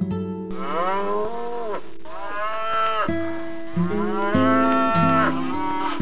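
Cow mooing: two long moos, the second longer, each rising and then falling in pitch, over acoustic guitar music.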